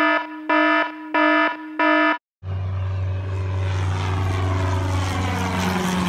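Four short, identical beeps in the first two seconds. After a brief break, a small single-engine propeller airplane flies low overhead, its engine drone loud and steady, with the pitch starting to drop as it passes over.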